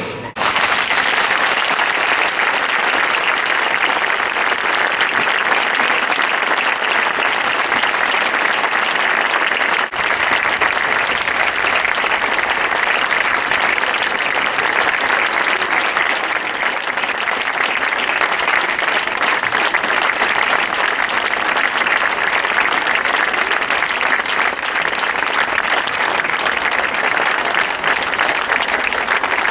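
A large crowd applauding steadily and at length, with a brief dip about ten seconds in.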